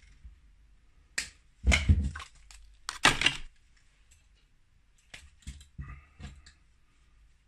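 Workbench handling noises: a series of crackling rustles and clicks as wire is fetched and handled, loudest about two and three seconds in, followed by a few lighter clicks.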